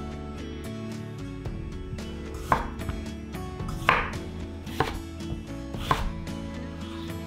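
A ceramic kitchen knife cuts through daikon radish down onto a wooden cutting board. There are four distinct cuts, about a second apart, starting about two and a half seconds in.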